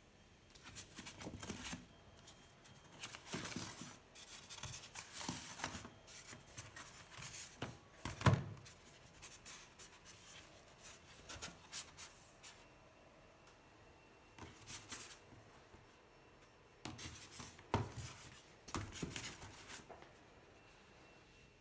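Packaging being handled: paper booklets and polystyrene foam inserts rubbed, scraped and shifted in irregular bursts of rustling, with one louder thump about eight seconds in.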